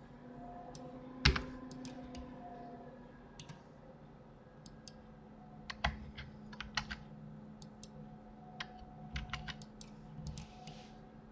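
Computer keyboard keys clicking in irregular taps, with one loud click about a second in and small clusters later, over a faint steady hum.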